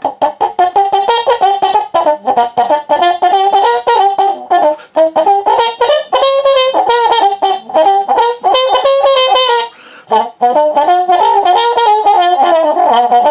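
Solo trumpet playing a jazz phrase of many short, tongued staccato notes in its middle register, with a brief break about ten seconds in.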